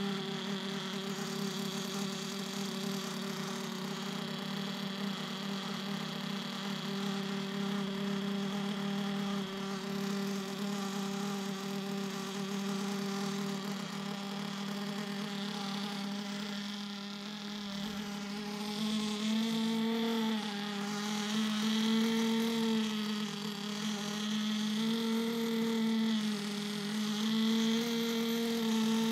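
Small two-stroke nitro RC car engine running steadily through its break-in. In the second half its speed lifts slightly and drops back several times.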